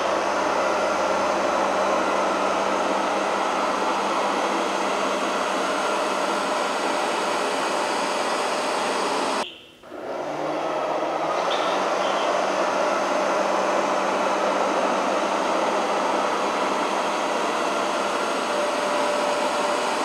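Jisiwei I3 robot vacuum cleaner running on carpet: the steady whir and hiss of its suction fan and brushes, with a faint steady whine. The sound drops out briefly about halfway through, then resumes the same.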